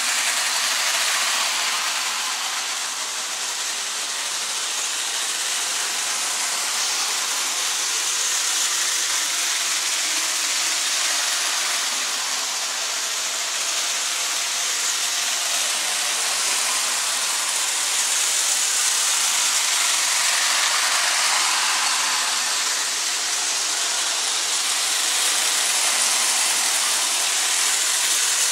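Prewar Lionel tinplate toy train running on its track: a steady whir and rattle of the locomotive's motor and the wheels on the metal rails, rising and falling gently in loudness as the train laps the loop.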